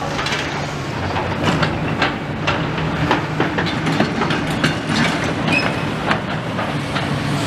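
Demolition excavator's diesel engine running steadily while its bucket and grab handle brick rubble, with many irregular clattering knocks of bricks and debris.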